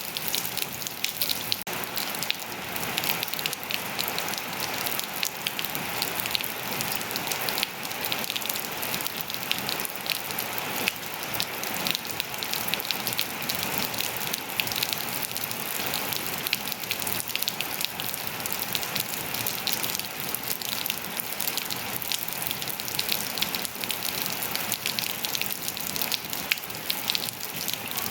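Steady rain falling, many close drops pattering on surfaces over a constant hiss.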